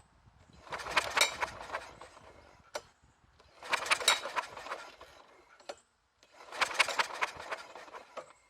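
Snapper lawn mower engine pulled over by its recoil starter three times, about three seconds apart, each pull cranking it for about a second without it catching, with a sharp click between pulls. The engine does not fire; its carburetor's leaking needle and seat had flooded it.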